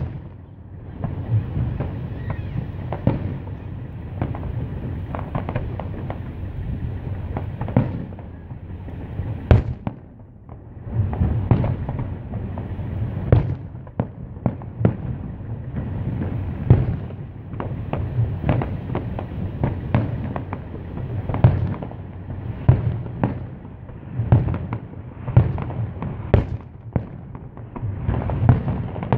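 Aerial firework shells bursting in a rapid series of booms and cracks, with a continuous rumbling echo between them and a brief lull about ten seconds in.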